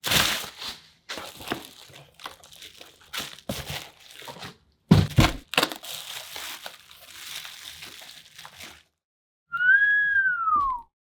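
Packaging being unwrapped by hand: irregular crinkling and rustling of wrapping, with a solid thunk about five seconds in as the box or package is handled. Near the end comes a short pitched squeak or whistle that rises and then falls.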